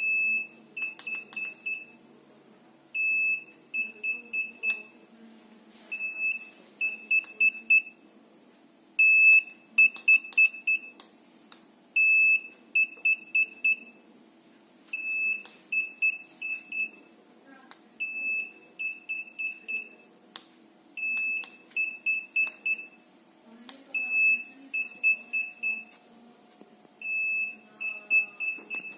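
Xiaomi M365 electric scooter's beeper sounding its error alarm: one longer high beep followed by about four short quick beeps, the group repeating about every three seconds. It is the sign of a fault the scooter is reporting straight out of the box.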